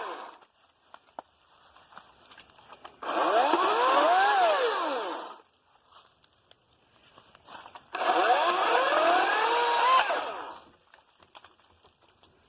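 Ryobi 40V 14-inch battery chainsaw run in short bursts on its variable-speed trigger while cutting through brush. One run ends just after the start, then two more of about two and a half seconds each, the motor's whine rising and falling in pitch. Light knocks and clicks come between the runs.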